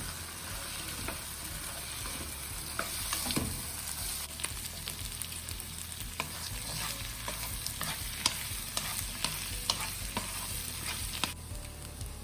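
Stir-fry sizzling in a pan while it is stirred, with scattered clicks and scrapes of the spatula against the pan. The high sizzle drops off about a second before the end.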